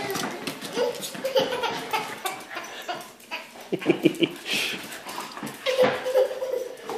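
A toddler giggling and squealing while small dogs play around her on a tile floor, with scattered clicks and knocks throughout and a cluster of louder knocks about halfway through.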